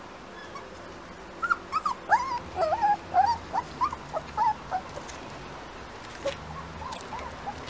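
Four-week-old rough collie puppy whimpering: a rapid run of short, high whines and yips lasting about three seconds, starting about a second and a half in, with a few fainter ones near the end.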